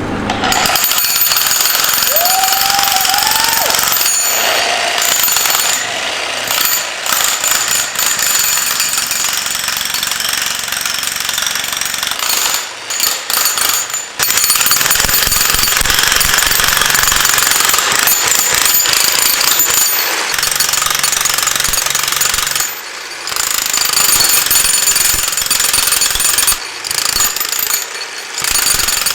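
Electric Harbor Freight jackhammer hammering into concrete. It runs in long stretches and stops briefly about halfway through and twice near the end.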